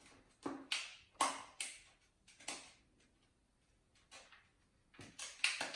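Seedling potting soil being scooped and filled into the cut-off top of a plastic bottle: a string of short, irregular rustles and scrapes, several in quick succession near the end.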